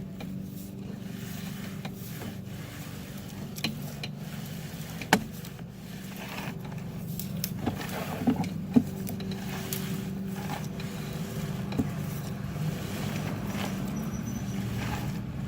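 Sewer inspection camera rig being pulled back through the line: a steady low hum with scattered clicks and light knocks, the loudest about five seconds in.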